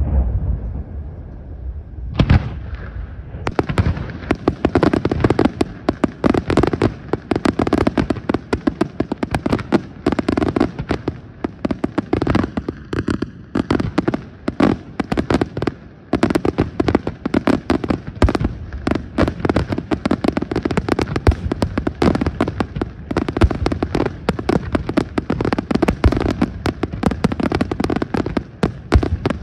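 Aerial fireworks display: a rumble dying away, one loud bang about two seconds in, then from about three and a half seconds on a dense, continuous barrage of rapid bangs and crackles.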